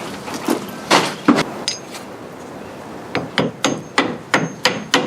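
Hammer tapping a half-inch square-tubing insert into an undersized hole drilled in an MDF bifold door, to give the loose hinge pin a solid seat. It strikes three times, pauses, then strikes quickly and evenly, about three blows a second.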